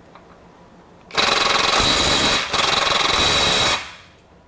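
Ryobi One+ HP 18-volt compact 3/8-inch impact wrench hammering in reverse on a torqued nut to break it loose. It starts about a second in and runs for about two and a half seconds, with a brief break near the middle.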